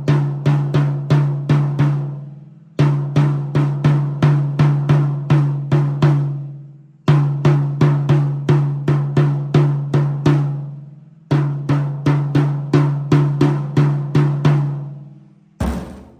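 A drum from a Pearl Roadshow kit is struck with a stick in four even runs of about eight to ten hits, roughly three a second. Each hit rings on at one steady pitch, and the runs are separated by short pauses. A single low thump comes near the end.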